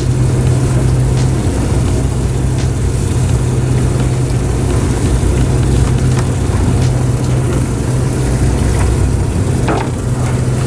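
Fishing boat's engine running with a steady low hum, under a constant even hiss.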